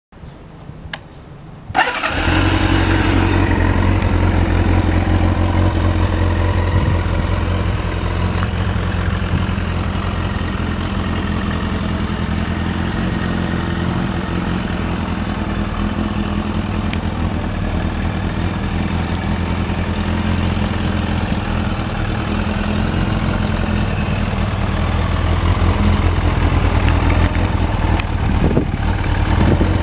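Kawasaki ZRX400-II's inline-four engine being started, catching about two seconds in. It then idles steadily through a Yoshimura titanium full exhaust, with a couple of quick throttle blips near the end.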